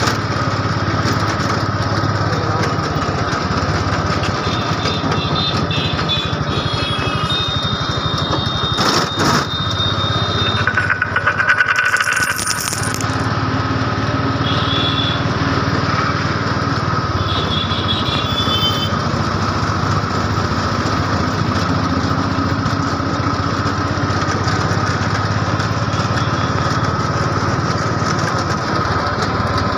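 Auto-rickshaw's small engine running steadily while the vehicle drives through traffic, heard from inside the cab. A few short high tones break in now and then, with a sharp click about nine seconds in and a brief louder passage around twelve seconds.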